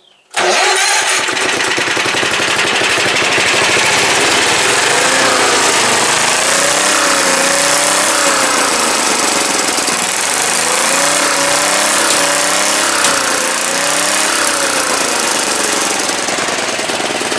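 8 hp Tecumseh single-cylinder lawn mower engine running loud and steady with a fast pulsing beat, its pitch rising and falling back twice as the throttle is worked.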